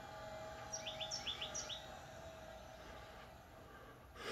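LiftMaster LA500 swing-gate actuators running faintly as they close a pair of wrought-iron gates, a steady motor whine that dies away about three seconds in. A bird gives a quick run of descending chirps about a second in, and a short rush of noise comes at the very end.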